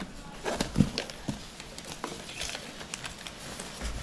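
Handling of plastic packaging on a foam box insert as plastic straps are pulled off: crinkling with scattered light clicks and taps, the strongest knock about a second in.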